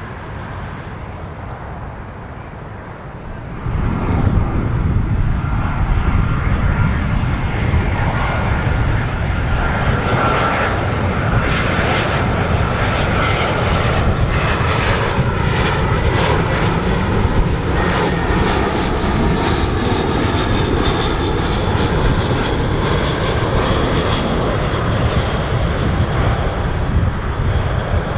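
Jet airliner on final approach passing low overhead: engine rumble and whine that turn suddenly loud about four seconds in and stay loud, with a faint whine sliding slowly down in pitch.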